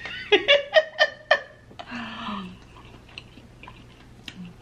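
A woman laughs in several quick bursts, then gives a short low hum. Faint clicks from handling and eating crab follow.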